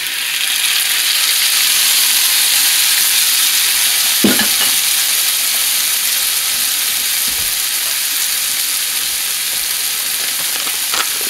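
Freshly added diced tomatoes frying with onions in hot vegetable oil in a frying pan: a steady, loud sizzle that swells over the first couple of seconds as the wet tomatoes hit the oil, then holds. One brief tick about four seconds in.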